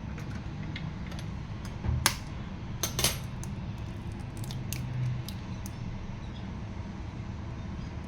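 Kitchenware clinking and tapping: two louder sharp knocks about two and three seconds in, then a few lighter ticks, over a steady low hum.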